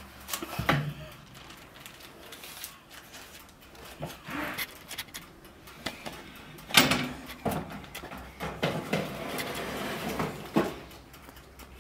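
Metal baking tray and the glass door of a countertop electric oven knocking and clattering as the tray is loaded into the oven. The loudest, a sharp clack, comes about seven seconds in, with smaller knocks after it.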